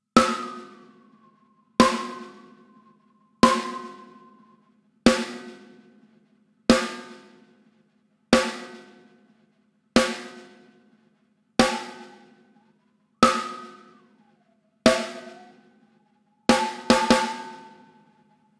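Sampled snare drum (Superior Drummer 3, snare top mic) struck once about every second and a half, each hit ringing out. A narrow EQ boost is being swept through the snare's tone, so a whistling ring rides behind the hits and glides in pitch. Near the end comes a quick flam of two or three hits.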